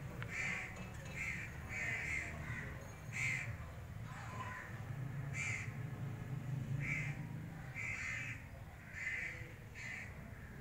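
Birds calling, about a dozen short calls spaced irregularly, roughly one a second, over a steady low hum.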